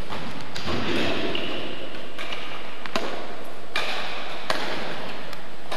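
Badminton rackets striking a shuttlecock: several sharp hits about a second apart, with short high squeaks of trainers on the sports hall floor, over a steady hiss.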